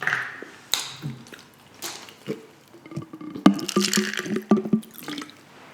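Close-miked eating sounds: wet chewing, mouth smacks and clicks. About three and a half seconds in there is a short pitched hum from the voice.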